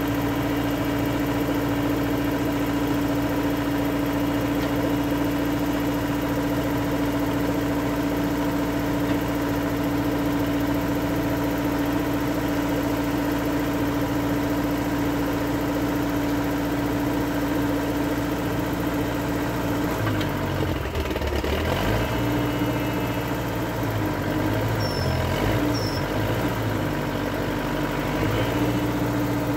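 Old skid steer's engine idling steadily. From about twenty seconds in, its low note wavers up and down, and it rises slightly at the very end.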